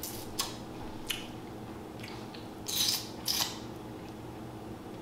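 Seafood shells being cracked and broken apart by hand: a couple of sharp clicks, then two louder short crunching cracks about three seconds in.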